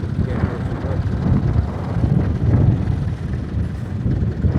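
Tractor engine running with a low, uneven throb.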